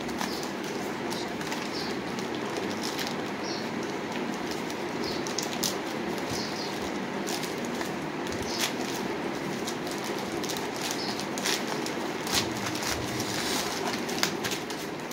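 Plastic courier mailer being torn open and handled, crinkling and rustling with scattered sharp crackles, over a steady low background rumble.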